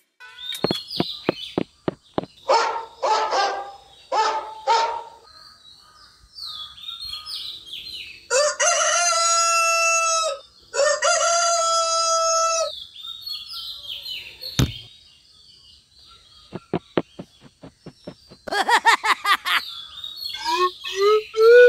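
A rooster crowing twice about halfway through, each crow a long, steady held call, among scattered short bird chirps. There are three short rasping calls earlier on, and a run of quick rising squeaky glides near the end.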